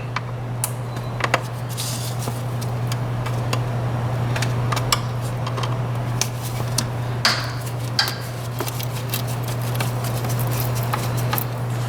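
Scattered metallic clicks and clinks of a hand tool working a hose clamp on a plastic air intake tube, loosening it, over a steady low hum.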